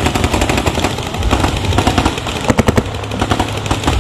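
Paintball markers firing rapid strings of shots, several guns at once, with a dense close burst about two and a half seconds in.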